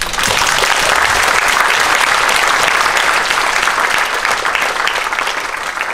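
Audience applauding, breaking out all at once and thinning out near the end.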